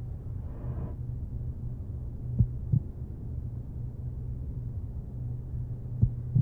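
Film sound-design heartbeat: two double thumps, one about two and a half seconds in and the other near the end, over a low steady drone.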